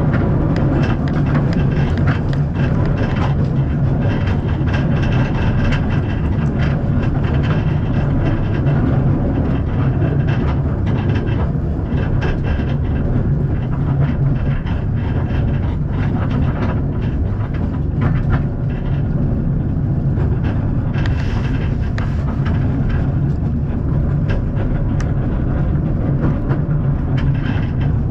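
Narrow-gauge steam train carriage running along the track: a steady low rumble of wheels on rails with frequent small clicks and rattles.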